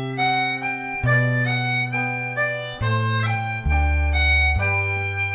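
Live acoustic band playing an instrumental break in a slow ballad: a lead instrument carries the melody in held notes over acoustic guitars and a bass line that steps to a new note every second or two.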